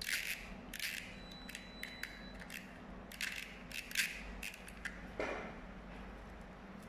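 Screwdriver turning the reel hub of a videocassette to wind the tape back in: short bursts of plastic clicking and rattling, about six times, with the loudest about four seconds in.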